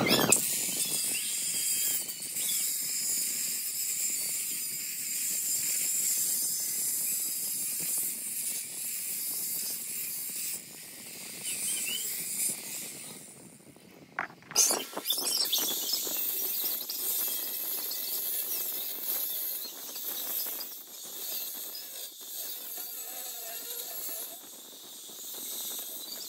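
Pressurised gas hissing steadily from a hose. It stops for about a second near the middle and starts again after a click.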